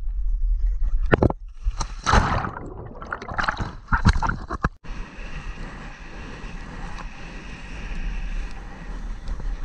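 Wind buffeting an action camera's microphone during a kiteboarding jump, with loud water splashing and churning about two to four seconds in as the rider comes down into the water. From about five seconds on, a steadier hiss of the board skimming across the water.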